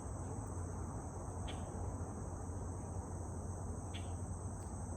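A steady high-pitched insect chorus over the constant low hum of distant highway traffic.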